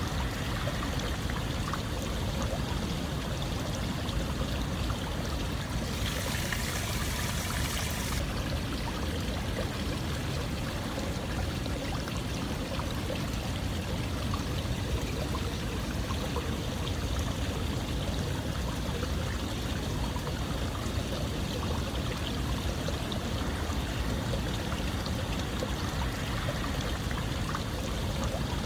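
Steady flowing water, running continuously. About six seconds in, a brighter hiss swells for a couple of seconds, then settles back.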